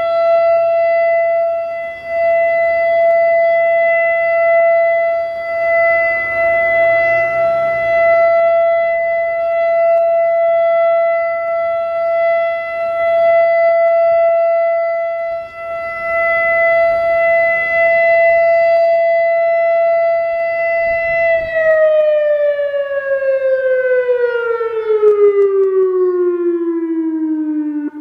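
American Signal Corporation E-Class EC4 electromechanical tornado siren sounding a steady tone during a test, its level swelling and easing slightly. About 21 seconds in, the siren begins to wind down and the pitch falls smoothly and steadily.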